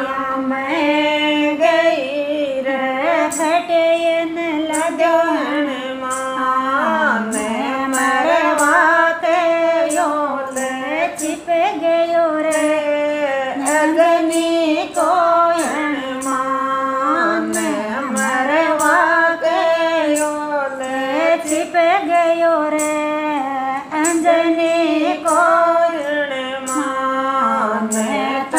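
Women singing a Marwari devotional folk song to Hanuman together, with no instruments. From about three seconds in, sharp hand claps keep a steady beat about twice a second.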